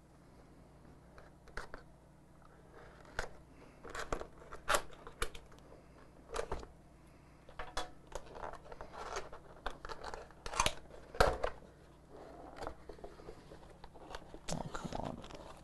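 Cardboard keyboard box being opened and its packaging handled: irregular clicks, knocks and rustles, loudest a little after ten seconds in.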